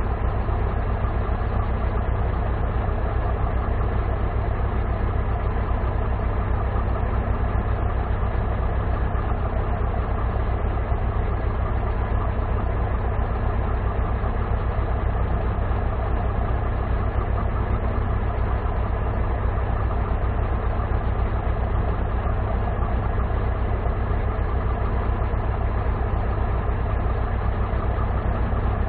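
Mercedes-Benz 1944 truck's turbocharged diesel engine idling steadily, deep and even, with no revving.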